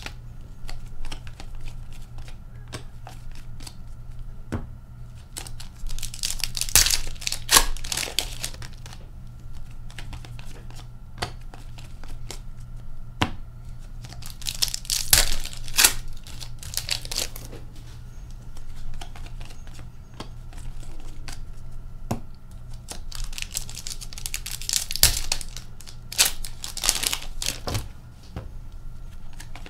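Foil wrappers of Upper Deck hockey card packs being torn open and crinkled, in three bursts roughly nine or ten seconds apart. Between them, cards click and slide as they are flicked through in hand, over a steady low hum.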